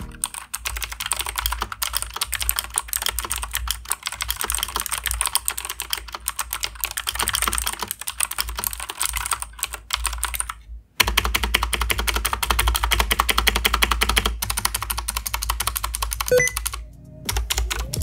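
Fast typing on a Royal Kludge RK84 75% mechanical keyboard fitted with RK Blue clicky switches: a dense, continuous stream of sharp keystroke clicks. It breaks off for a moment a little past halfway.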